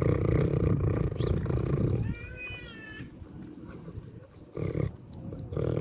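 A pig's low, rasping breaths or grunts: one long rasp lasting about two seconds, then shorter ones near the end.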